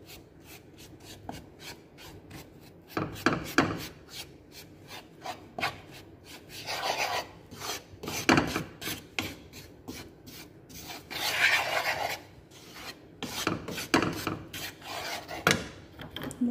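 Wooden spoon scraping and stirring dry flour in a metal frying pan: a run of irregular rasping strokes against the pan, some louder than others, as the flour is dry-toasted for polvoron.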